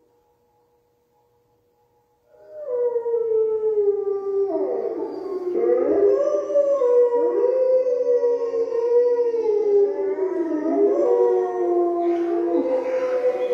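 Recorded wolves howling in chorus: several long, overlapping howls gliding up and down in pitch, starting about two seconds in.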